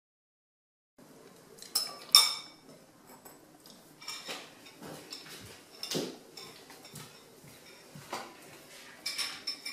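A metal spoon clinking and knocking against a ceramic cereal bowl: a string of separate sharp clinks, the loudest about two seconds in, beginning after a second of silence.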